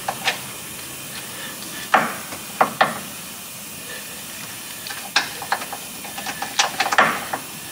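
Irregular metal clicks and knocks as steel bolts are fitted by hand into a new lower control arm and the subframe of a 2014 Mazda 3, with a steady hiss underneath.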